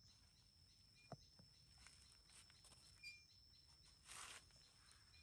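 Near silence: faint outdoor background with a steady high-pitched whine, a sharp click about a second in and a short rustle about four seconds in.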